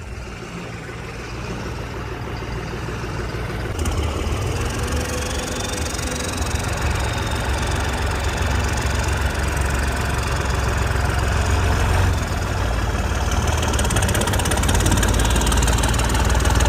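Engine of a home-built bulldozer running, growing steadily louder, with a step up about four seconds in.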